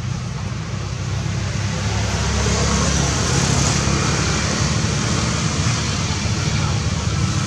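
Steady low rumble of road traffic, swelling a little about two seconds in.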